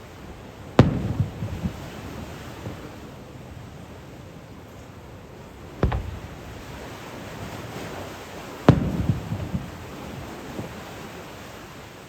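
Aerial firework shells bursting: three loud booms, about a second in, near six seconds in and near nine seconds in, the first and last trailed by a spatter of smaller pops.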